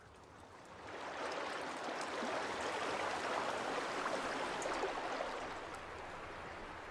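Rushing river water in spring flood, a steady roar of fast-flowing water that swells in about a second in and eases off after about five seconds.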